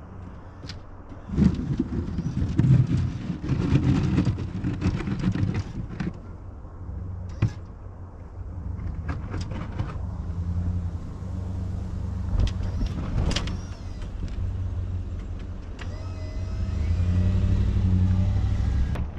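Engine of a snow-plowing vehicle running steadily while clearing snow, with louder, rougher stretches in the first few seconds and a few knocks. A thin whine near the end.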